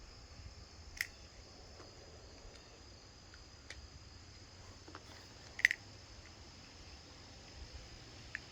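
Crickets chirping steadily, with a few sharp little metal clicks and taps from a small hex key and gun parts being handled. The loudest click comes about five and a half seconds in.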